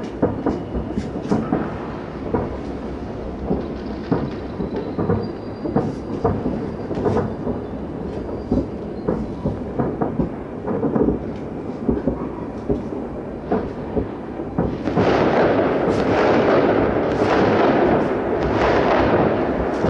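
Fireworks salute shells from salute launcher vehicles bursting in quick, irregular booms that roll like thunder. About fifteen seconds in, the bursts merge into a louder, continuous crackling rumble.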